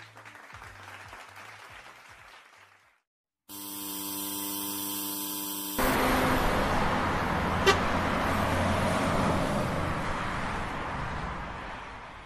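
A car horn sounds one steady held note for about two seconds, followed by the steady noise of street traffic, louder than the horn, with a single brief click in it, fading away near the end.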